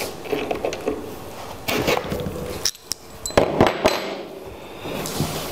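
Small metal clicks and clinks of hand tools and hardware: pliers pulling the pointed marking pivots out of a desk screen's frame, then parts and tools being handled on a wooden desktop, with a quick run of sharp clicks a little past halfway.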